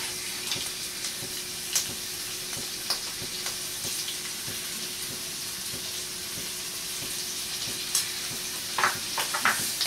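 Sliced onions sizzling in hot oil in a pan, a steady frying hiss, with a few light clicks near the start and a cluster of them near the end.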